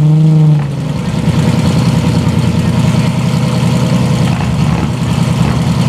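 Straight-piped Lamborghini Murcielago LP640's 6.5-litre V12 idling through its open exhaust, with a steady, rhythmic burble. It is louder for the first half second and dips in pitch as it settles into the idle.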